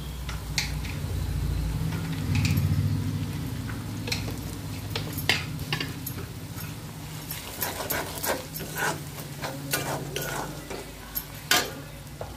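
Onions and chilli powder sizzling in hot oil in a kadai while a metal spatula stirs, scraping and knocking against the pan, the knocks coming thick and fast in the second half. A steady low hum runs underneath.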